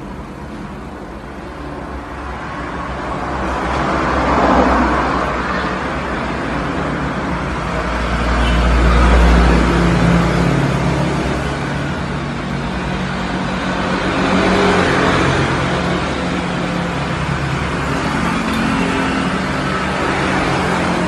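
Road traffic passing outside: vehicles swell and fade about three times, the middle one with a deep engine rumble, over a low steady hum.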